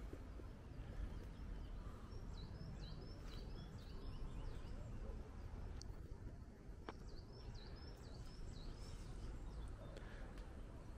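Outdoor ambience with a steady low rumble and a small songbird chirping. The bird gives a quick run of short, falling chirps a couple of seconds in, and another run a little past the middle.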